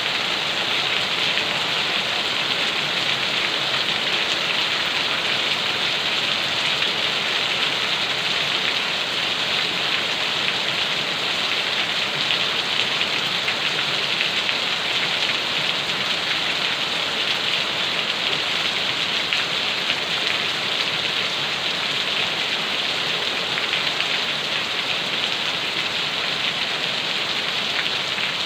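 Steady rain falling and pattering on a surface, a dense hiss of countless drops with no let-up.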